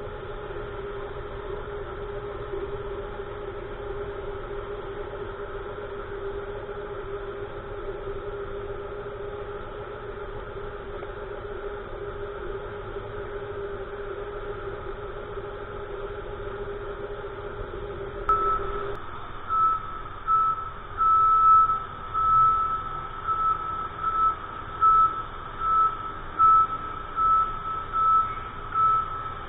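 Airport ground-support equipment beside an airliner's cargo hold: a steady machine hum cuts off about 19 seconds in, and a vehicle warning beeper then starts, beeping about one and a half times a second.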